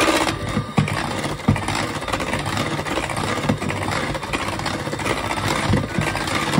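Electric hand mixer running steadily, its beaters whirring through thick pound cake batter of butter, sugar and eggs, with a few short knocks along the way.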